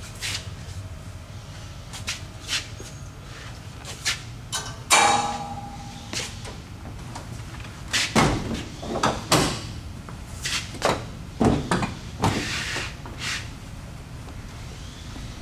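Front hood of a bus being closed and latched. There is a metallic clank that rings briefly about five seconds in, then a run of knocks and thumps as the hood panel is handled, lowered and fastened.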